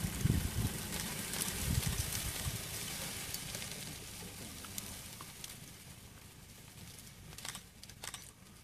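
Cheetah feeding on a carcass: wet chewing and tearing at meat, with a few sharp clicks near the end, over a low rumble that fades over the first three seconds.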